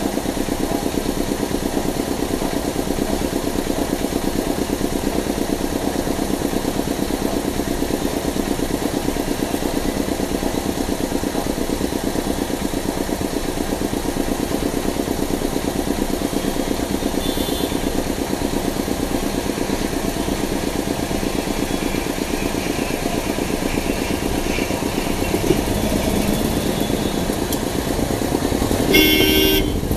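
Car engine idling steadily, heard from inside the car while stopped in traffic, its note rising as the car pulls away near the end. A short car-horn honk sounds about a second before the end.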